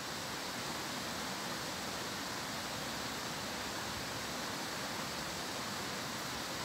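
Steady, even rush of a stream running over rocks, unchanging throughout.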